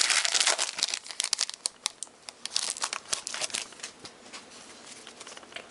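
Foil wrapper of a trading-card pack being torn open and crinkled. The crinkling is dense for the first second or so, then thins to scattered crackles and clicks that fade out about four seconds in.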